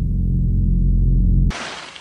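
Deep, low musical drone, like a sustained gong or cinematic swell, growing louder and then cut off abruptly about one and a half seconds in, leaving a quieter hiss.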